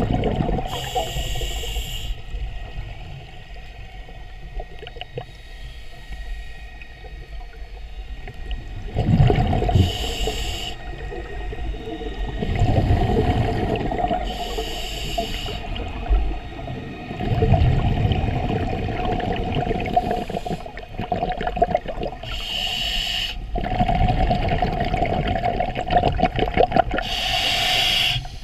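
Scuba regulator breathing heard underwater: five short hissing inhales through the regulator, spaced several seconds apart, alternate with low bubbling bursts of exhaled air, over a faint steady hum.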